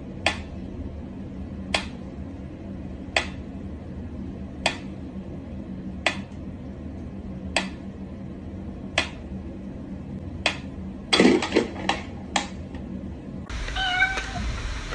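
Sharp taps or clicks repeating evenly, about one every second and a half, over a steady low hum, then a quick run of several taps, before the sound changes to a different, noisier scene near the end.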